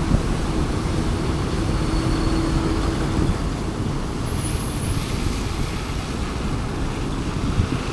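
Road traffic noise heard from a moving scooter: a steady rush of engine and tyre noise, with a held tone for about the first three seconds.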